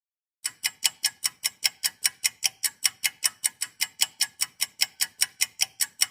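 Rapid, even mechanical ticking, about five sharp ticks a second, starting about half a second in.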